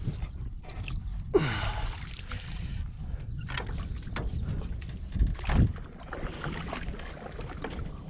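Water splashing and sloshing beside a small boat as a hooked giant snakehead is fought at close range, with wind rumbling on the microphone. A short falling tone and a burst of splashing come about a second and a half in, and a louder low knock a little after five seconds.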